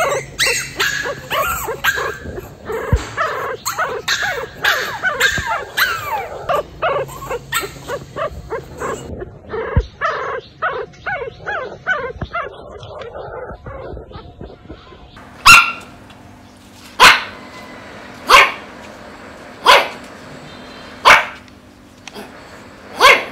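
Young pug puppies whimpering and yelping, many overlapping high-pitched cries that slide up and down, thinning out about halfway through. Then a dog barks six times, evenly spaced a little over a second apart.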